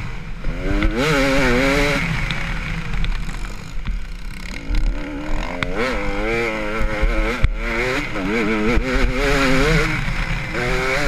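Enduro dirt bike engine heard from on the bike, the revs rising and falling as the rider works the throttle along the trail. The revs drop off for a few seconds in the middle, then climb and fall rapidly again, with occasional knocks from the bike over the rough ground.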